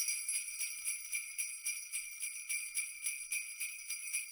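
Sleigh bells jingling, shaken in a steady rhythm of about four shakes a second.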